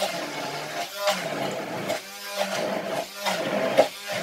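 Hand-held immersion blender running in a tall glass of cranberry and orange filling. Its motor pitch keeps dropping and recovering about once a second as the blades churn through the fruit.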